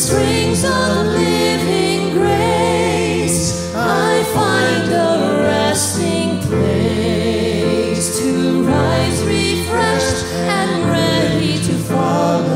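Worship song being sung, the voice wavering with vibrato over instrumental backing with held low bass notes.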